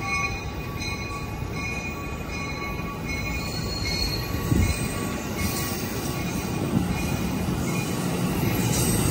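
Bilevel passenger cars of an Amtrak San Joaquin train rolling past on departure, with a steady wheel and rail rumble and a faint wheel squeal early on. The sound grows louder near the end.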